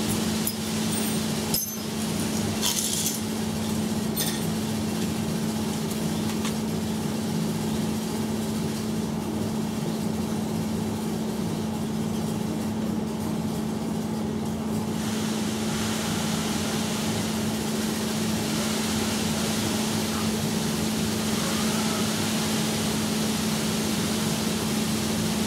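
Metal hand tools clinking a few times in the first few seconds, over a steady background hum.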